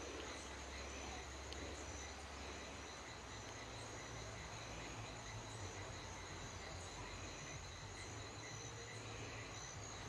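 Faint, steady chirring of insects: a few thin high tones held without a break.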